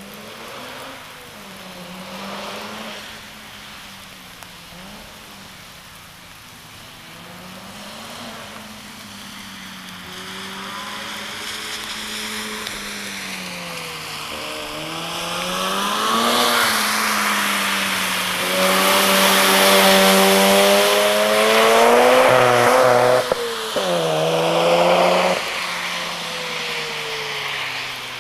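Mazda RX-7 FD's twin-turbo 13B-REW rotary engine, revving up and dropping back again and again at speed. It grows louder as the car comes closer, is loudest about two-thirds of the way through, then falls away sharply.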